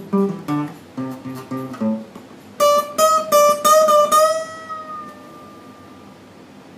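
Acoustic guitar playing blues: a run of picked low and middle notes, then about five bright high notes struck just under half a second apart, the last one held with a slight waver and left to ring out and fade, closing the tune.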